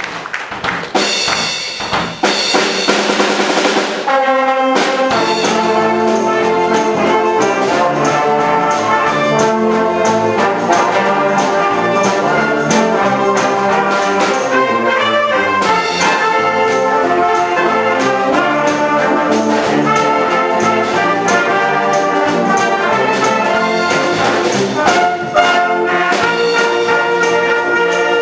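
Wind band of brass, saxophones and percussion playing a rock'n'roll medley arrangement. It comes in with cymbals over the first few seconds and is at full, steady volume from about four seconds in.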